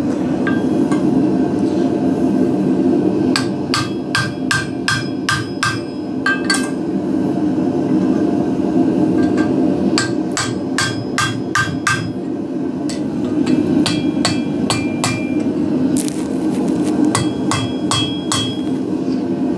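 Hand hammer striking a steel drift set in a punched hole in red-hot steel over the anvil's hole, stretching the hole out: runs of quick, ringing metal-on-metal blows, about three a second, with pauses between runs. A steady rushing from a gas burner runs underneath.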